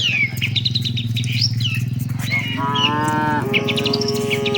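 Small birds chirping throughout, and from about halfway a cow lowing in one long high-pitched moo that breaks briefly and carries on. A steady low hum sits underneath.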